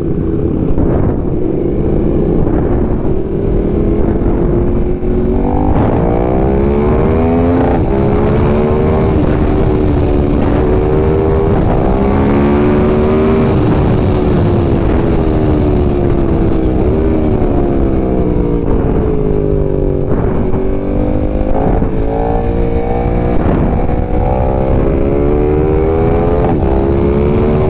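BMW S1000RR inline-four engine running on the move. Its pitch climbs in steps as it changes up through the gears, eases down, then climbs again. Heavy wind rumble on the microphone sits under it.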